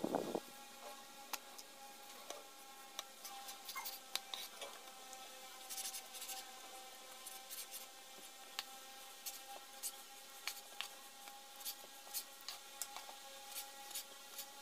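Kitchen knife slicing raw chicken breast on a plastic cutting board: irregular soft taps and scrapes of the blade against the board, over a faint steady hum.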